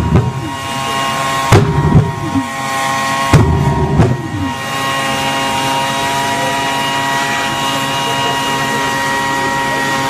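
Homemade jet engine mounted on a bicycle running with a steady high whine, punctuated by three loud whooshing bursts as it belches flame from the exhaust pipe: one at the start, one about a second and a half in, one about three and a half seconds in. Each burst dies away with a falling note.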